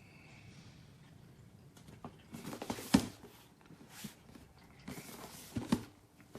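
Handling noises from the laptop stand being moved about: rustling and scraping with sharp knocks, in two bursts a few seconds apart, each ending in a loud knock.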